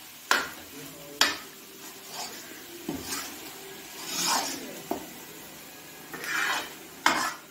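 A metal spoon stirring and scraping a thick roasting turmeric-and-flour panjiri around a steel kadhai. Irregular strokes: a few sharp scrapes against the pan, about a second in and near the end, and longer rasping drags in between.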